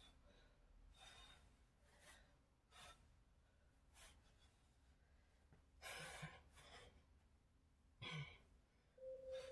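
Faint, hard breathing from exertion during Russian twists, with short sharp exhales about once a second and a couple of voiced grunting breaths. Near the end a steady electronic tone begins: the smart-speaker timer alarm marking the end of the set.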